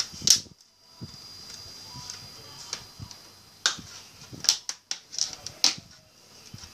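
Sharp plastic snaps and clicks from the clips of a Toshiba C640 laptop's screen bezel as it is pressed and worked by hand along its edge. One loud snap comes right at the start, then a cluster of four or five more in the second half.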